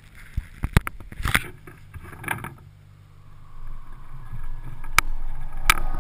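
Kayak being paddled: splashy paddle strokes in the water and several sharp knocks, over a low steady rumble.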